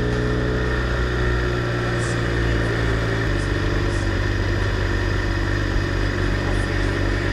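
BMW R1200R LC's boxer-twin engine running steadily while riding, with wind noise over the onboard microphone. The engine note drops slightly about three seconds in.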